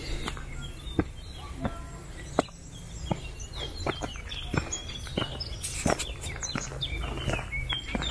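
Footsteps on a gravel path at an even walking pace, with small birds chirping throughout.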